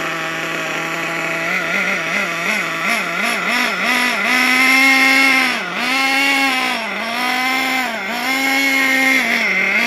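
The nitro engine of a Hot Bodies Lightning GT radio-controlled car running, loud. Its pitch steadies at first, then swings up and down about three times a second, then rises and falls in longer surges about once a second, while it is still running fairly rich during break-in.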